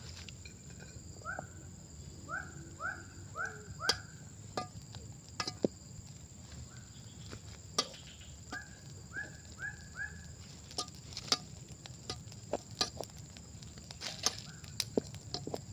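A steady high insect drone, with two runs of four quick rising calls from an animal, about two a second, and scattered sharp clicks and cracks.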